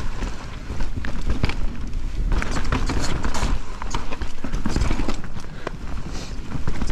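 Enduro mountain bike riding fast down a dirt forest trail: tyres rolling over dirt and roots, with the bike knocking and rattling at each bump. Wind rushes over the camera microphone as a steady low rumble.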